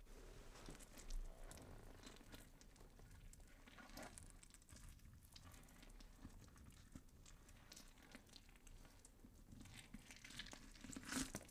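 Near silence with faint scattered clicks and knocks of a hand tool being worked on the Royal Enfield's cylinder head, a little louder about a second in and again near the end.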